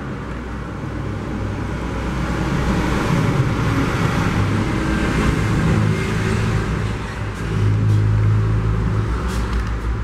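Steady low rumble of road traffic, growing louder to a peak about eight seconds in.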